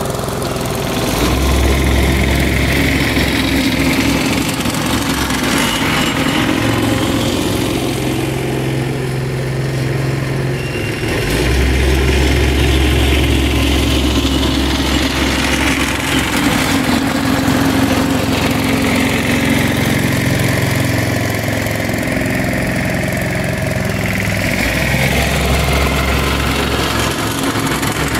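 Single-drum pedestrian roller's small engine running steadily as it rolls fresh tarmac, with a deep low hum that cuts in and out three times.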